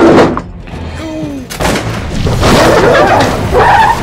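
Cartoon crash sound effects of a small spaceship slamming into an asteroid. A loud boom comes at the start, then a short quieter pause, then a loud, noisy rumble from about one and a half seconds in as the ship sits stuck in the dust.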